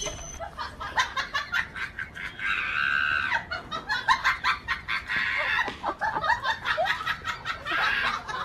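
Chickens squawking and clucking in alarm, with a long harsh squawk about two and a half seconds in and many sharp clicks and scuffles throughout.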